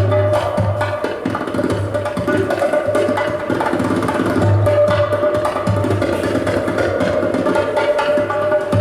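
Live band playing, with busy hand percussion and drums over a held melody note and a sustained low bass.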